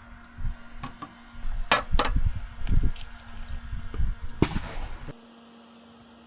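Several sharp knocks and clicks over low rumbling handling noise, as things are moved about; the sound cuts off suddenly about five seconds in.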